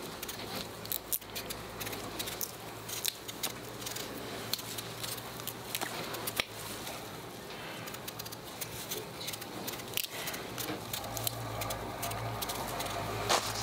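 Small knife peeling a raw potato by hand: irregular scrapes and clicks as the blade cuts through the skin, over a steady low hum.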